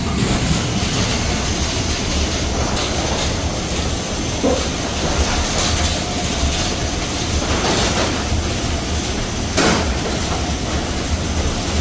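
A garage door running on its opener: a steady rolling rumble with scattered clicks and knocks as the door moves along its tracks.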